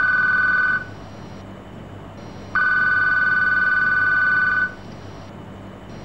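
Desk landline telephone's electronic ringer ringing for an incoming call: one ring cuts off about a second in, and after a pause a second ring of about two seconds sounds, a steady two-note electronic tone.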